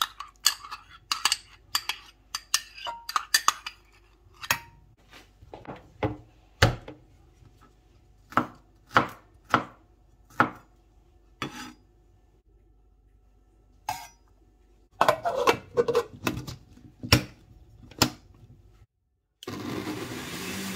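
Clinks and taps against a stainless steel bowl as yoghurt is scraped in, then a kitchen knife chopping a garlic clove on a wooden cutting board in irregular sharp knocks. About a second before the end, after a brief pause, an electric food processor's motor starts and runs steadily.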